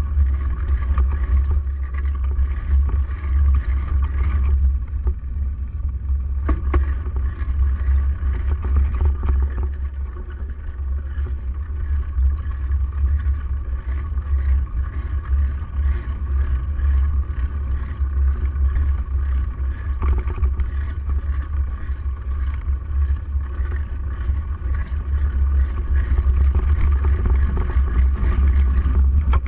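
Wind buffeting and road rumble on a handlebar-mounted camera as a bike rides over bumpy dirt, a steady low rumble with jolts from the rough ground.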